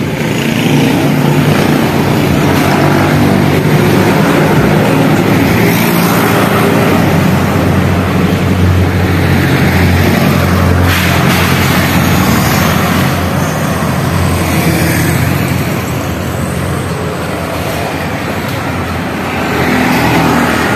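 Roadside traffic: jeepneys, cars and motorcycle tricycles running and passing close by, with a steady low engine note, loudest about halfway through.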